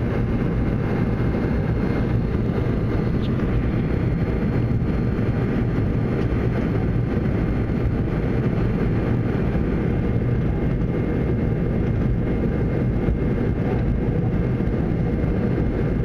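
Steady engine and airflow noise inside an airliner cabin during the climb: a constant low rumble with a faint, steady high whine above it.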